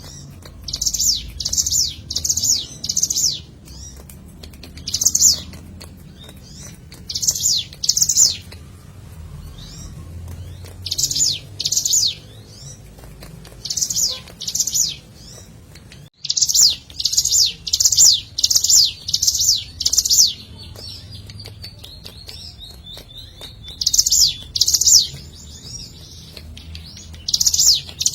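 Ciblek gunung (mountain prinia) singing: groups of two to five loud, sharp, high chirps repeated every couple of seconds, with a longer fast run of notes about two-thirds of the way through. A faint low hum lies underneath.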